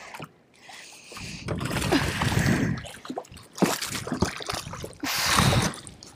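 Splashing and sloshing water with rustling handling noise and a few knocks, in three bursts, as a hooked smallmouth bass is brought up over the side of a small aluminium boat.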